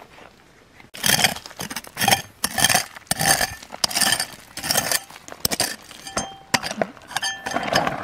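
Hard objects clinking and scraping against each other in repeated strokes, about two a second, starting about a second in; the later strokes are sharper clicks with a brief ring.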